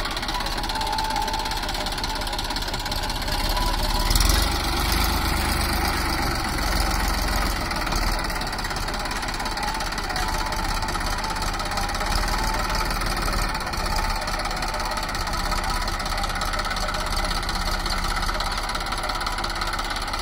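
Massey Ferguson diesel tractor engine running steadily while working a front loader, scooping soil and lifting the bucket, with a brief louder surge about four seconds in.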